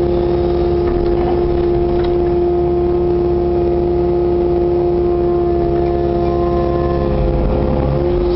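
Kubota KX080-4 compact excavator's diesel engine and hydraulics running under load as the bucket digs and lifts a load of soil, heard from inside the cab: a steady drone with a constant whine over a low rumble.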